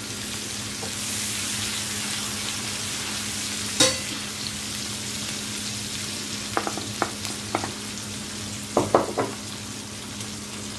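Onions frying in oil in a nonstick frying pan, a steady sizzle while being stirred with a wooden spoon, over a steady low hum. A sharp knock about four seconds in, then several short clicks and taps in two groups later on as raw shrimp are tipped from a plate into the pan.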